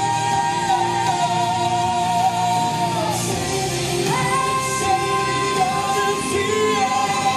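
A male and female vocal duet singing a pop ballad over a full band backing, holding long sustained notes; the melody drops about three seconds in and climbs back to a higher held note about a second later.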